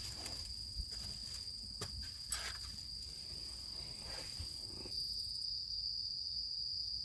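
Insects singing a steady, high-pitched continuous trill, with a few light clicks and knocks about two seconds in.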